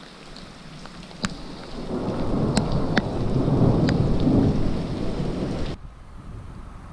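Rain falling on a wet cobbled street, with a few sharp taps, and a low rumble of thunder that builds about two seconds in and rolls on for several seconds. The sound cuts off abruptly near the end.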